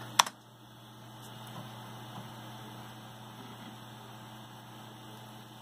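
A single keystroke on a computer keyboard, the Enter key that launches a program, followed by a faint, steady electrical hum from the running computer.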